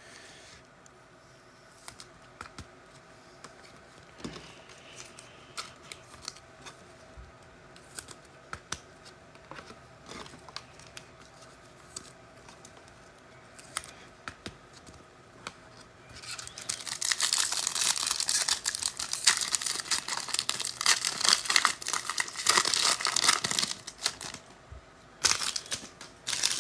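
A trading-card pack's foil wrapper being torn open and crinkled: a loud, dense crackling that lasts about seven seconds past the middle, with another short burst near the end. Before it come scattered light clicks and taps of cards being handled.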